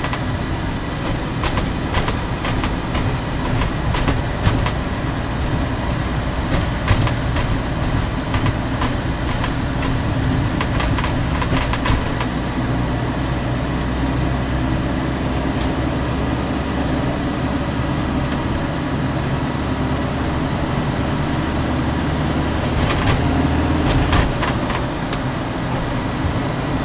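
Motorhome cab noise while driving on a motorway: steady engine and road rumble, with scattered sharp clicks and rattles over the first half and again near the end.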